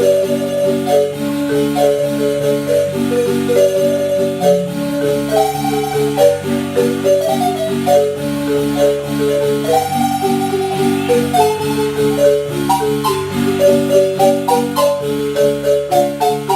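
Marimba music: a quick melody in the upper notes over a steady, evenly pulsing accompaniment of repeated chords in the lower notes.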